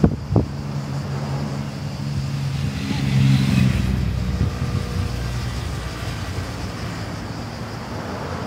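Passing road traffic, a car and a motorcycle, with the engine note swelling to its loudest about three seconds in and then fading. Two brief low knocks sound at the start.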